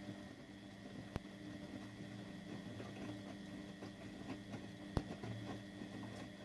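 Siemens Siwamat 870 washing machine running, its motor humming as the drum turns, with water sloshing and two sharp clicks, one about a second in and one about five seconds in.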